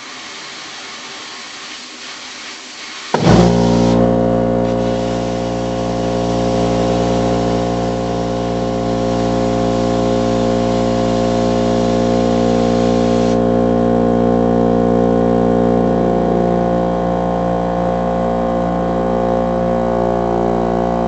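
Plasma cutter at work on steel: a hiss of air starts, then about three seconds in a loud, steady droning hum cuts in abruptly and runs on. The highest part of the hiss drops away about thirteen seconds in.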